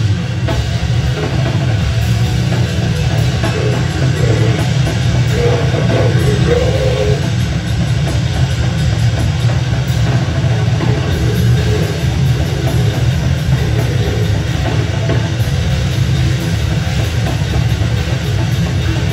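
A live rock band playing loud: electric guitar, electric bass and drum kit together, with a heavy low end.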